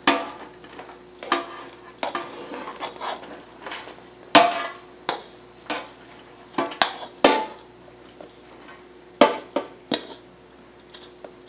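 A spatula knocking and scraping against an aluminium pot as cooked basmati rice is tipped and shaken out into a metal baking tray: irregular clinks and scrapes, thinning out near the end.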